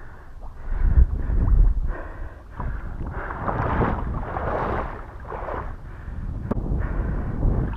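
Water swishing and sloshing in irregular surges as someone moves through marsh water, over a low wind rumble on the microphone. A single sharp click comes about six and a half seconds in.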